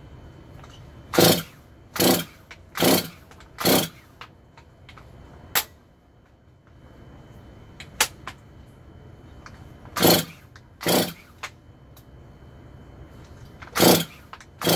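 Recoil starter pulls on a Stihl MS 250 two-stroke chainsaw: the cord rasps as it cranks the engine, four quick pulls in a row, then two more, then another near the end. The engine does not fire on any of them, though the ignition coil is giving spark.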